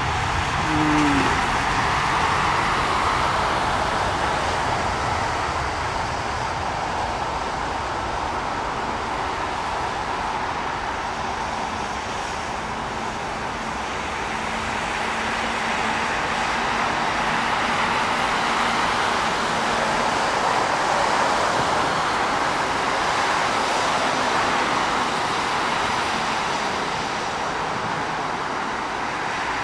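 Distant jet airliner engines at takeoff power: a continuous roar that swells twice and eases off, with a brief falling tone about a second in.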